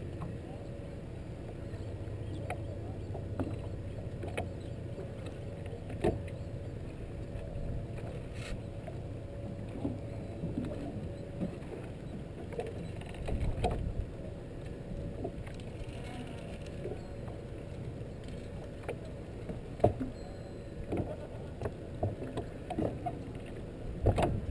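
Fishing boat at sea: a steady low rumble of the hull and water, with occasional sharp knocks on the deck.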